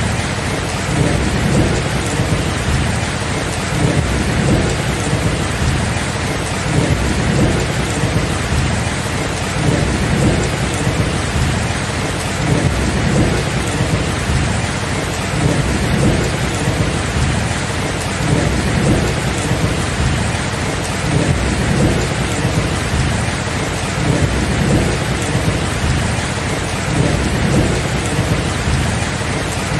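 Steady heavy rain with thunder rumbling low and continuously, with no single sharp clap.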